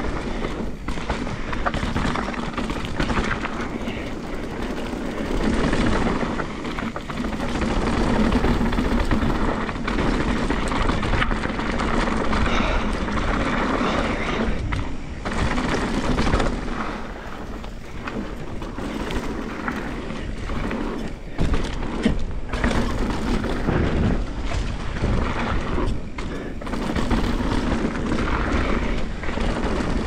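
Mountain bike ridden fast down a dirt trail: a steady rumbling rush of wind on the microphone, with tyre noise on the dirt and frequent knocks and rattles from the bike over bumps.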